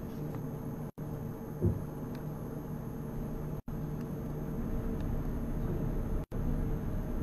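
Steady low hum and hiss of a large hall's room tone, with one short dull thump about a second and a half in. The sound cuts out to silence for an instant about every two and a half seconds.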